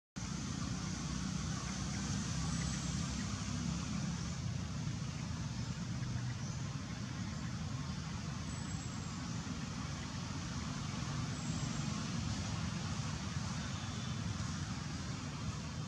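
Steady rumble of nearby road traffic, with a few faint high chirps.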